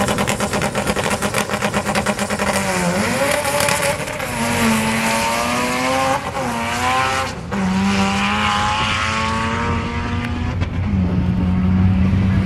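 Honda D-series four-cylinder race engine held at steady high revs on the start line with a rapid stutter, then launching about three seconds in and pulling hard at full throttle through three quick gear changes. Between shifts the revs stay fairly flat instead of climbing, the sound of a clutch slipping badly under full-throttle shifting.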